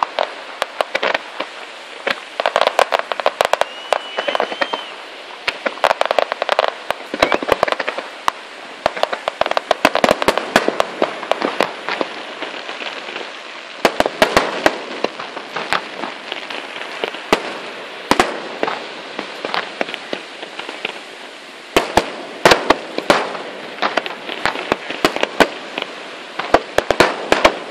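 Fireworks display: aerial shells bursting in clusters of sharp bangs and crackling every few seconds, with a short whistle about four seconds in.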